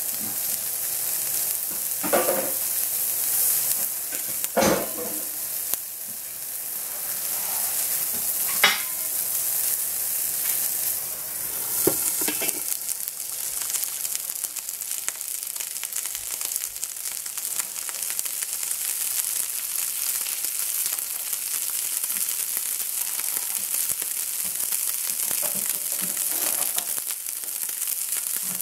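Halved Brussels sprouts sizzling in hot oil in a frying pan, a steady hiss. About four short clatters of cookware in the first half, as a lid is put on the pan, and the sizzling carries on under the lid.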